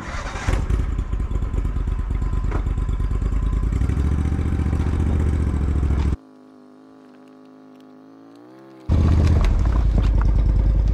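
Argo amphibious ATV's engine running loudly as the machine drives forward. About six seconds in it drops suddenly to a quieter steady hum for a few seconds, then the loud engine noise comes back.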